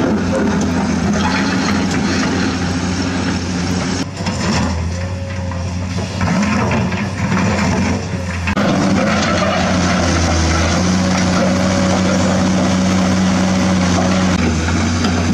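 Steady, low, engine-like drone of a heavy excavator, accompanying a Huina radio-controlled toy excavator as it digs and loads. The drone wavers and shifts between about four and eight and a half seconds in, then settles back to steady.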